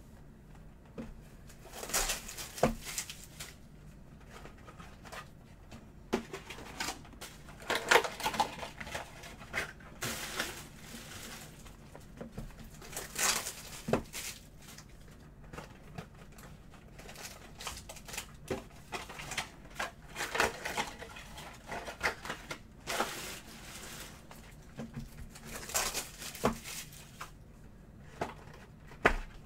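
Cardboard hobby boxes being handled on a table: slid off a stack, shuffled and set down, with irregular knocks, scrapes and rustles, and a box lid being worked open near the end.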